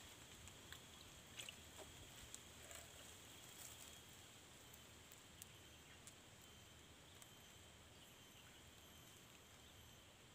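Near silence: faint outdoor ambience with a steady high-pitched hum and a few faint ticks in the first half.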